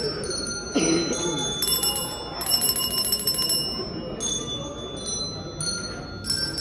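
Small metal bells rung in repeated shakes, each shake starting suddenly and ringing on with several high tones, with a run of fast shaking in the middle. A voice calls out briefly about a second in.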